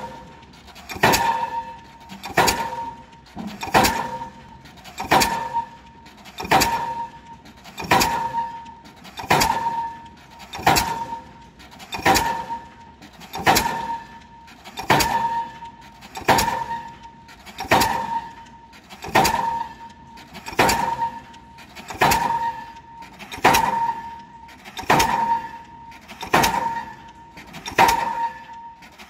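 Diesel pile hammer driving a pile, about 21 strikes at an even pace of one every 1.4 seconds. Each blow is a sharp metallic clang with a ringing tone that dies away before the next.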